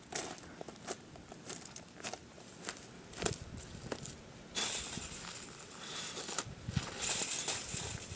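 Footsteps crunching on dry grass and gravel, with scattered clicks and rustles. A steady hiss comes in about halfway through.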